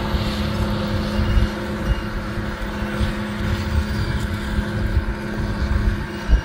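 John Deere 7820 tractor's six-cylinder diesel engine running steadily under load while pulling an air seeder through the field: a constant engine hum over an irregular low rumble.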